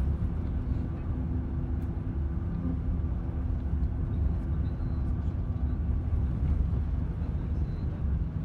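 Cabin noise of a moving road vehicle: a steady low engine and road rumble heard from inside while driving.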